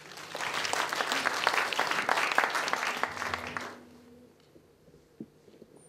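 Audience applauding, building quickly and dying away after about three and a half seconds.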